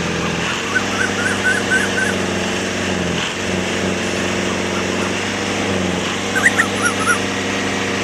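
Small motor of a miniature tractor model running at a steady, even hum. A few short high yelps sound about a second in and again near the end.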